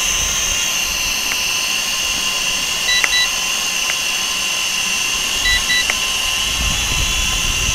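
XK X300 quadcopter hovering in position hold, its motors and propellers giving a steady high whine. Two short electronic double beeps sound about three seconds in and again about five and a half seconds in, with a few faint clicks. A low wind rumble on the microphone sets in about five and a half seconds in.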